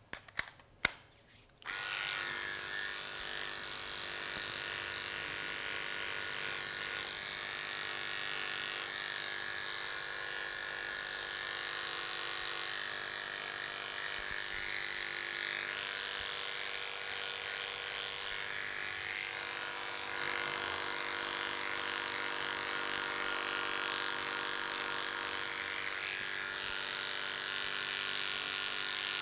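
A few clicks, then an electric dog-grooming clipper fitted with a 5F blade switches on about two seconds in and runs with a steady hum as it clips through the dog's coat.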